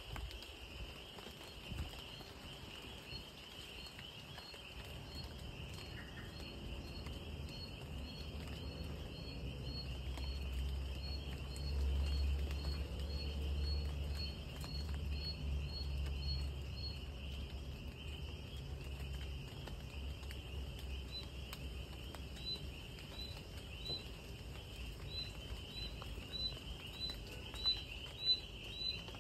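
Night-time insect chorus: a steady high trilling, with another insect chirping in an even series about twice a second that pauses midway and resumes. A low rumble swells under it in the middle.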